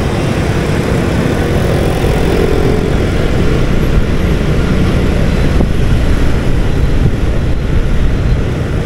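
Steady riding noise from a motorbike travelling along a street: a continuous low rumble of engine, tyres and wind on the microphone, with passing traffic.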